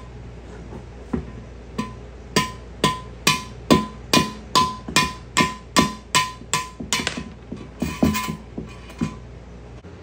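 Hammer striking a quarter-inch steel threaded rod to drive a block plug out of an oil passage in a small-block Chevy 350 engine block. A string of sharp metal-on-metal blows, each with a short ring, about two a second, starting about a second in and stopping near nine seconds.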